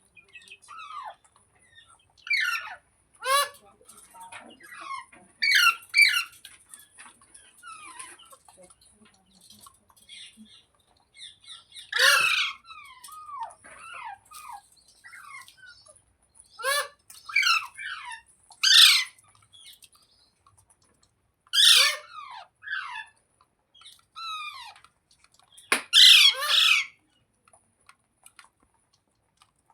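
Pet rose-ringed (ringneck) parakeet squawking: loud, harsh calls that fall in pitch, given singly or in quick pairs every few seconds, with softer chattering between them. The loudest bursts come about halfway through and again near the end.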